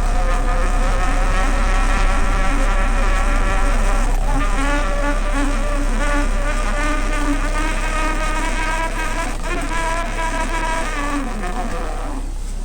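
A motor running with a steady, buzzing whine whose pitch wavers slightly, cutting off about twelve seconds in.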